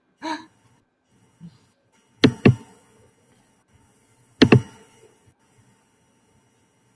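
Two pairs of sharp clicks or taps, about two seconds apart, each pair a quarter-second double stroke, over quiet room tone.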